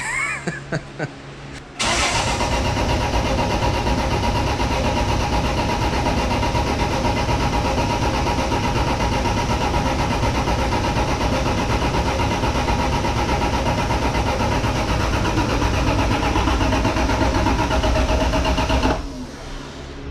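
Toyota 7M-GTE turbocharged straight-six being cranked over on its starter without firing, to build oil pressure after the rebuild. The cranking starts about two seconds in, runs steadily and stops abruptly near the end.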